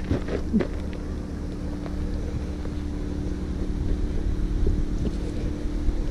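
Wind rumbling on the microphone over a steady low hum, with a few sharp taps in the first second.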